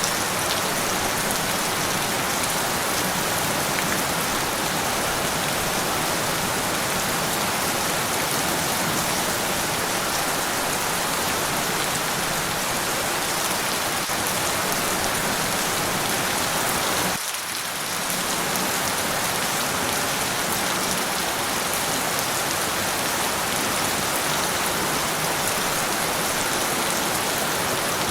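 Steady, dense rain falling, a continuous even hiss of drops. It dips briefly about two-thirds of the way through.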